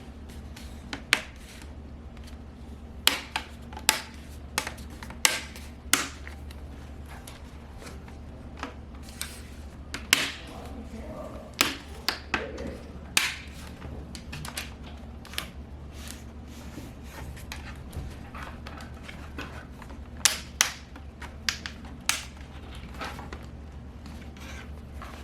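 Plastic display bezel of a laptop being pressed onto the screen lid, its clips snapping into place in a run of sharp, irregular clicks over a steady low hum.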